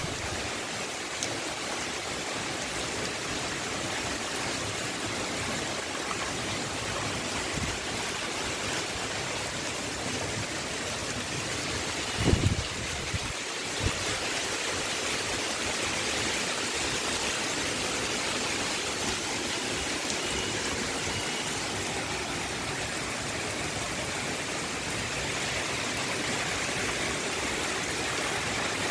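Heavy rain pouring down steadily, a dense, even hiss. Two short low thumps about halfway through.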